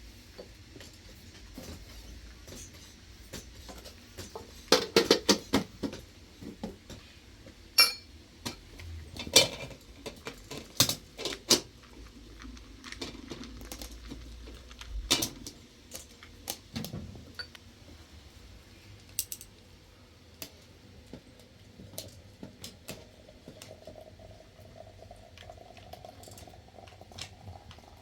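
Irregular clinks and knocks of hard objects being handled, a busy run of them in the first half, then sparser. Near the end a faint tone rises slowly in pitch.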